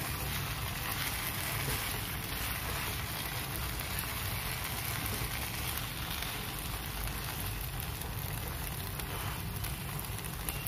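Oats upma sizzling steadily in a nonstick pan on the stove while a wooden spatula stirs it.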